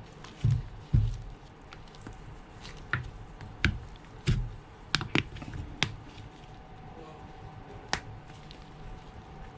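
Plastic back cover of a Samsung A12 being pried off its mid frame with a thin opening tool. It gives scattered sharp clicks as the cover's clips let go, mixed with a few dull knocks of the phone being handled, the loudest in the first second.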